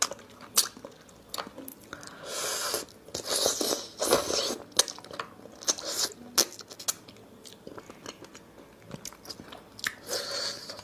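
Close-up eating of cooked hermit crab: sharp cracks and crunches of shell, with biting and chewing. There are longer, noisier stretches about two to four seconds in and again near the end.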